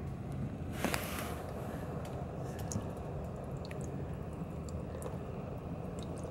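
Used engine oil draining in a stream from a car's oil pan into a drain pan during an oil change: a steady, even pouring with a few faint drips and ticks, and a light click about a second in.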